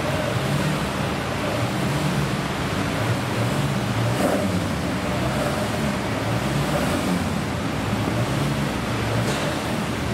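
Classic car engine running steadily at low revs, a low drone over a hiss of background noise.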